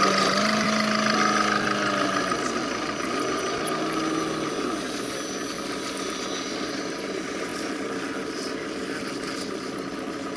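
Whine of the electric motors and geared drivetrains of RC scale crawler trucks creeping along a dirt trail. The pitch shifts in steps as the throttle changes over the first few seconds, then the whine fades, leaving a steady hiss.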